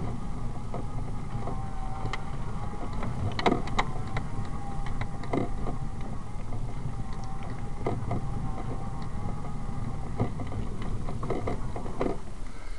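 Scooter rolling along a rough paved trail: a steady whine over a low rumble of the small wheels, with scattered knocks as the wheels hit root heaves and frost heaves in the pavement. The whine stops about ten seconds in as the scooter slows.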